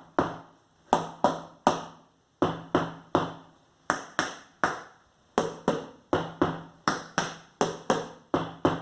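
A spoon striking improvised household drum surfaces: about twenty sharp, dry knocks in quick groups of two to four, each dying away fast.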